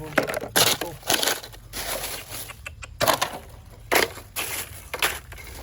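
Irregular crunching and rustling, about two noises a second, of footsteps through wet ground cover.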